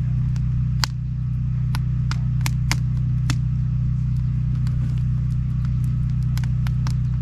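Campfire crackling, with sharp irregular pops and snaps, over a steady low hum.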